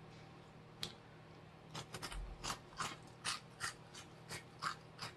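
Crunchy spicy corn snack being chewed: one sharp crunch about a second in, then a steady run of crisp crunches, about three a second, from about two seconds in.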